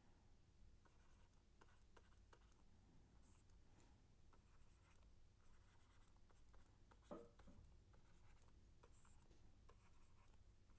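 Faint scratching and tapping of a stylus writing on a pen tablet, with one brief, slightly louder sound about seven seconds in.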